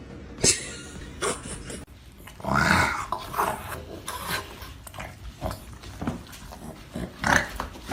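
A pet animal's short noises mixed with scratching and rubbing sounds, with a few sharp clicks in the first second and a louder burst about two and a half seconds in.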